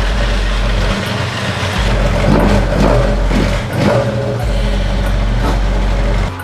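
Carbureted 4A-GE engine of a Toyota AE86 Corolla running and revving up and down several times between about two and four seconds in, with music's deep bass notes underneath.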